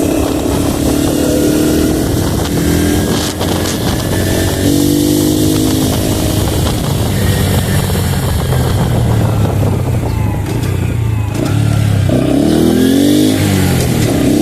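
Honda Pop 110's single-cylinder four-stroke engine and exhaust running under way, its pitch dropping and climbing again through throttle and gear changes, with a rising rev near the end.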